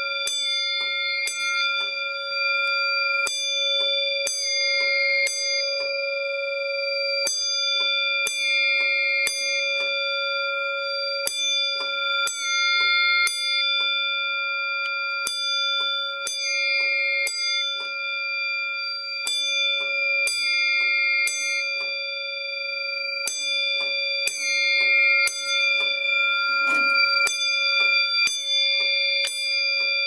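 Pyrotronics single-stroke fire alarm bell striking over and over, about twice a second, each strike ringing on into the next. It is sounding the fire alarm set off by the smoke detectors.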